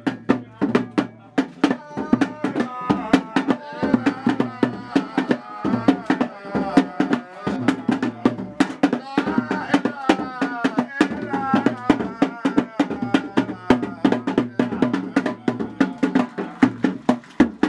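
Music: a fast, dense hand-drum rhythm, with a voice singing a wavering melody over it through the middle.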